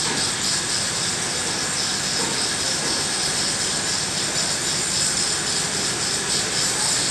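A steady rushing noise that holds at one even level throughout, with no rhythm, pitch or breaks.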